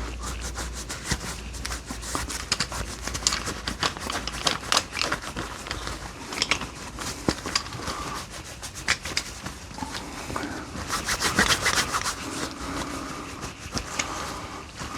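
A polishing cloth rubbing and buffing a restored metal G clamp: irregular rustling with many light clicks and knocks as the steel clamp is handled.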